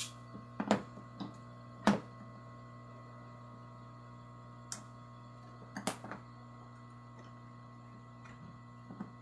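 Sharp light clicks and taps of hand tools against a MacBook Air's LCD panel and aluminium case, the loudest within the first two seconds and a few more later, over a steady electrical hum.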